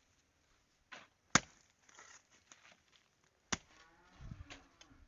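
A few sharp, isolated knocks of hand tools striking at a building site, the two loudest about two seconds apart with a fainter one before them.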